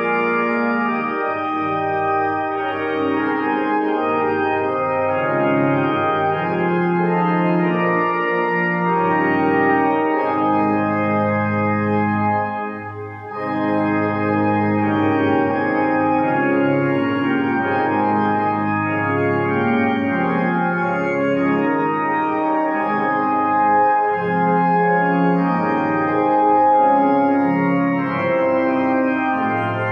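Organ stops played on an electronic keyboard: sustained chords with many overtones, changing every second or two, with a short break about thirteen seconds in.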